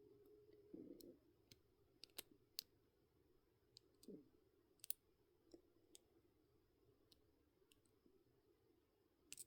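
Faint, scattered small metallic clicks, about ten at irregular intervals, from a lock pick and tension wrench working in a pin-tumbler lock, over a low steady hum.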